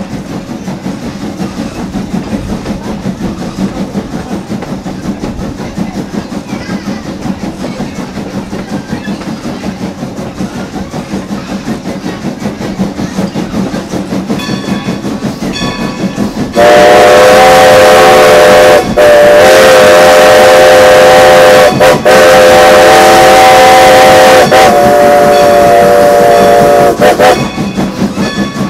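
Baldwin 2-10-0 steam locomotive running with a rapid steady beat; about sixteen seconds in its steam whistle blows a loud chord of several tones for about ten seconds, broken twice briefly, sounding for the road crossing just ahead.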